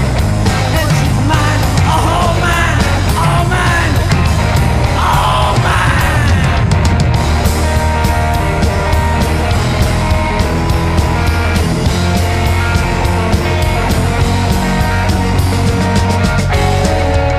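Rockabilly band playing. A male voice sings with yells over electric guitar and drums for about the first six seconds. After that comes an instrumental stretch led by a hollow-body electric guitar over a steady drum beat.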